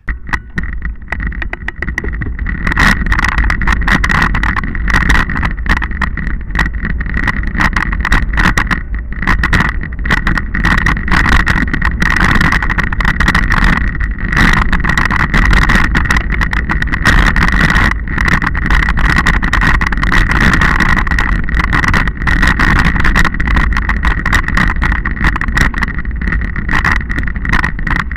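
Ride noise picked up by an onboard camera travelling over a rough dirt track: a low wind rumble, constant rattling and clattering, and a steady high-pitched whine.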